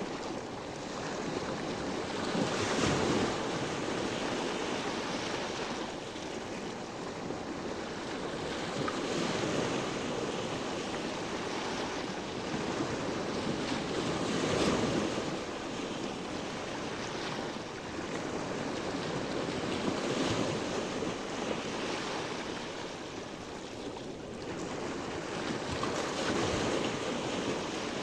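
Sea waves washing ashore and drawing back, each wash swelling and fading about every five or six seconds.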